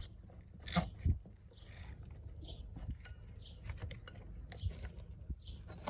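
Stihl MS210 clutch being spun by hand onto its left-hand-threaded shaft: light scattered clicks and rubbing of metal and glove, with a couple of sharper clicks about a second in.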